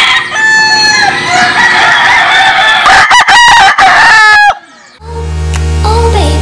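Game roosters crowing, several crows over the first four and a half seconds. After a short pause, intro music with a steady bass starts about five seconds in.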